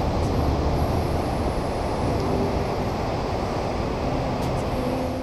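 Steady rushing wind noise buffeting an open-air action-camera microphone, with a heavy irregular low rumble and ocean surf in the background.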